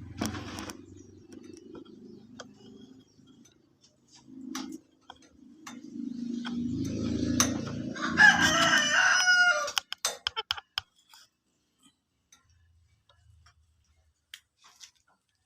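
A rooster-like crow, loudest about eight to ten seconds in, after stretches of low clucking and gurgling, with a few faint clicks after it.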